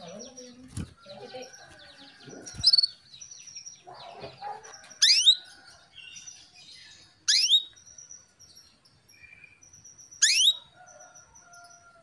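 Female canary giving three loud, sharp call notes, each a quick downward sweep, a couple of seconds apart. This is the female's call to a male, used to stir male canaries into singing. Fainter mixed background sounds come before the calls.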